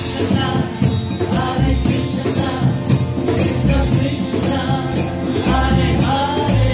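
Live kirtan music: voices chanting a devotional mantra over a steady hand-percussion beat of about three strokes a second, with low sustained string notes from cello and sitar.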